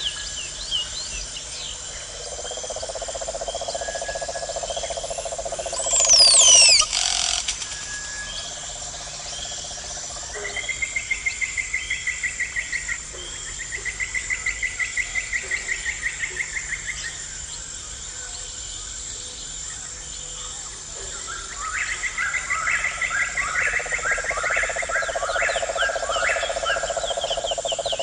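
Chorus of calling insects: a steady high trill throughout, with lower pulsed trills and bursts of rapid pulsed calls coming and going. A loud bird call of quick sweeping whistles sounds about six seconds in.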